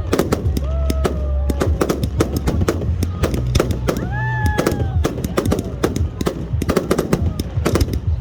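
Fireworks going off in a dense run of sharp cracks and bangs, with whistles arcing up and down in pitch over a low rumble. The loudest whistle comes about four seconds in.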